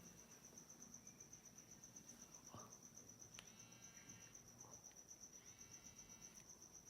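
Near silence: faint room tone with a steady, rapidly pulsing high-pitched whine, and two brief soft ringing tones, each about a second long, about halfway and three-quarters of the way in.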